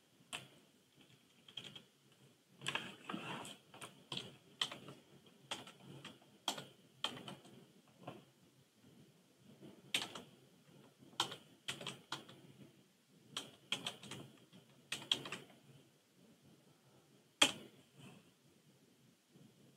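Someone typing on a computer keyboard: irregular keystroke clicks in scattered short runs, with one sharper click near the end.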